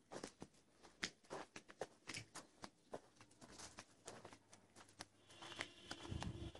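Faint, irregular crackling and rustling of footsteps on dry, straw-strewn ground, with a faint steady high hum joining near the end.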